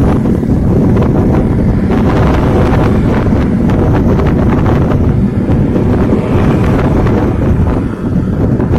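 Wind buffeting the microphone on a moving motorcycle, a loud steady rumble with the motorcycle's engine and road noise underneath.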